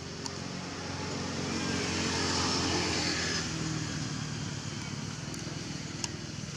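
A motor engine runs steadily with a low hum. It grows louder for a couple of seconds in the middle and then eases off again, as a passing vehicle does.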